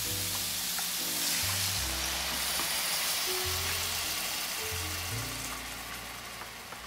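Chicken stock hissing and sizzling as it is poured into a hot cast-iron skillet of sautéed mushrooms, the sizzle dying down toward the end as the pan cools under the liquid. Background music plays throughout.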